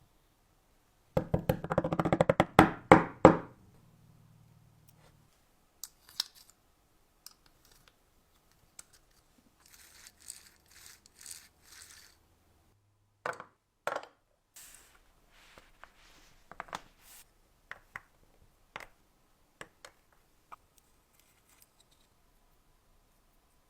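Small metal parts of a tin toy locomotive being handled. About a second in there is a rapid clatter of clicks lasting about two seconds, then scattered light clicks, short scrapes and knocks.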